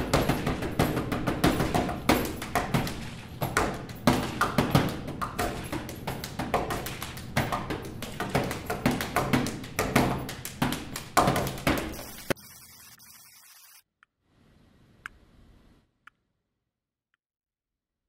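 Background music with a fast, busy percussive beat over a steady low tone, which cuts off suddenly about two-thirds of the way through, leaving near silence with a faint click or two.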